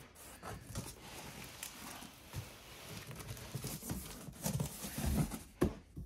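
Cardboard box flaps and bubble wrap rustling and scraping under the hands during unpacking, with a few soft knocks near the end.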